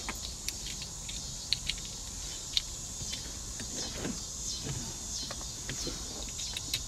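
Light scattered clicks and rustling of plastic wiring-harness connectors and wires being handled and pushed together, over a steady background hum.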